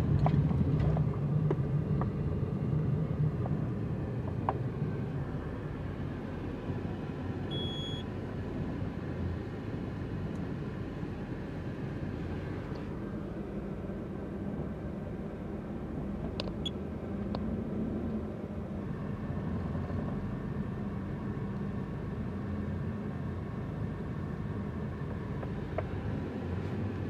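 Steady low rumble of a covered multi-storey car park, with one short electronic beep about eight seconds in and a few faint clicks in the second half.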